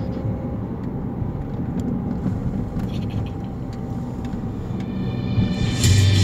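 Steady road and engine rumble inside a moving car's cabin. Near the end, loud music with a heavy bass line suddenly starts.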